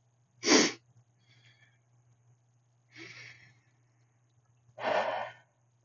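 A woman breathing hard while holding a forearm plank: a sharp exhale about half a second in, a softer breath around three seconds, and a longer exhale near the end.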